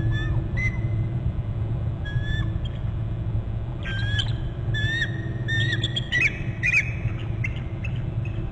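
Adult female bald eagle giving short, high chirping calls: a few scattered notes, then a quick run of chirps about four seconds in, taken to be food calls. A steady low rumble runs underneath.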